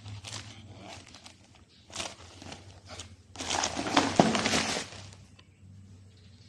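Packaging being handled: scattered rustles and crackles, then a louder burst of crinkling and crushing about three and a half seconds in that lasts around a second and a half, over a low steady hum.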